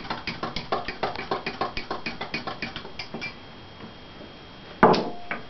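A metal bar spoon stirring a glass of hot toddy, clinking quickly and evenly against the glass, about four or five clinks a second, as the honey is stirred in; the stirring stops about three seconds in. Near the end comes one sharp knock with a brief ring.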